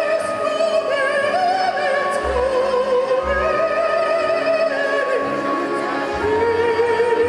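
A man singing live in a high, operatic voice, holding long notes with wide vibrato, backed by a band with keyboard and bass. The pitch steps down to a lower held note about six seconds in.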